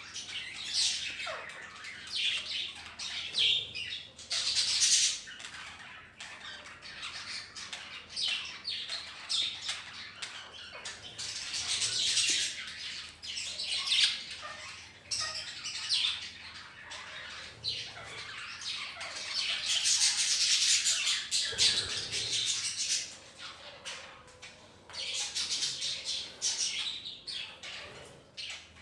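A colony of budgerigars chattering and chirping without a break, with louder harsh squawks breaking in every few seconds.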